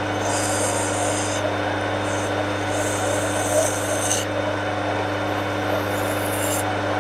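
Hand file chamfering and deburring the edge of a metal shaft spinning in a lathe: three scraping strokes over the steady hum of the running lathe.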